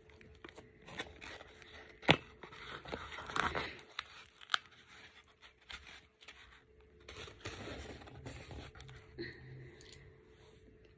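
Hands lifting an everything-bagel sandwich out of a paper food box: paper rustling and scraping, with a sharp tap about two seconds in.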